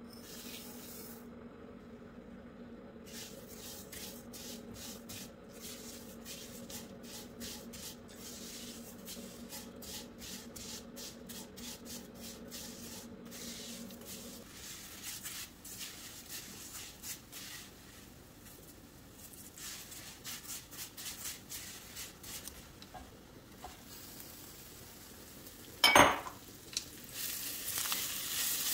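Vermicelli toasting in hot olive oil in a pan, stirred with a silicone spatula: light sizzling with many small crackles and scrapes. Near the end there is one loud knock, then louder sizzling as grated carrots go into the hot pan.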